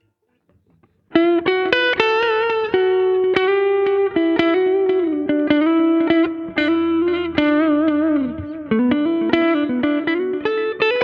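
Electric guitar played through a Zoom G1Xn multi-effects pedal: a melodic single-note lead line of quickly picked notes, held notes and a few slides, starting about a second in.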